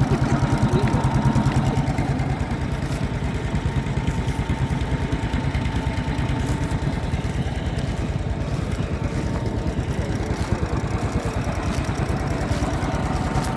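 Vintage tractor engine idling with a steady, rapid beat.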